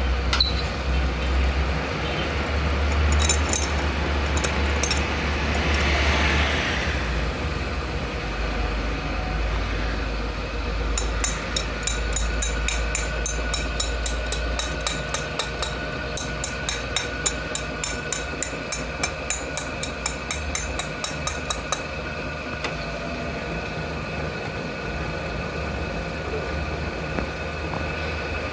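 Workshop machinery running with a steady hum, deep at first and easing after about nine seconds. From about 11 to 22 seconds a regular sharp ticking or tapping comes about twice a second.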